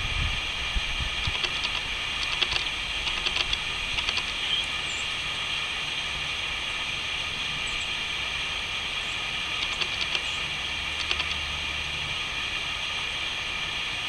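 Wind in the yellow leaves of a birch tree: a steady hiss with a low rumble, and two spells of crackly rustling as gusts pass through, early on and again about ten seconds in.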